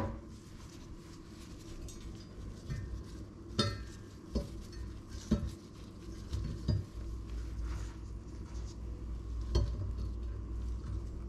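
Scattered light knocks and clicks as pieces of bread are laid into an air fryer basket, the pieces and gloved hands tapping against the basket.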